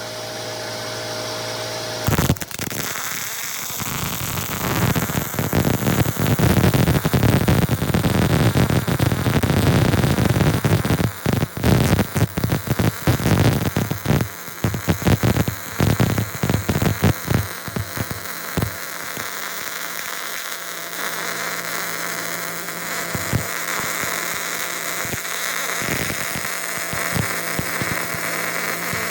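Electric arc welding a pass on steel: a dense, crackling hiss starts suddenly about two seconds in and keeps going, with a low hum before it.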